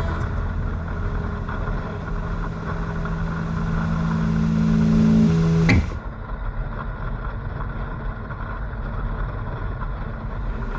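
VW trike's engine running at a steady speed while riding. About six seconds in there is a sudden break, after which the sound is quieter and duller.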